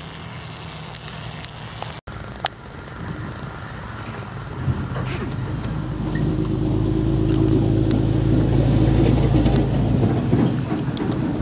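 A motor running, with steady low pitches; it comes in about four to five seconds in and grows louder, then holds. A few sharp clicks come before it.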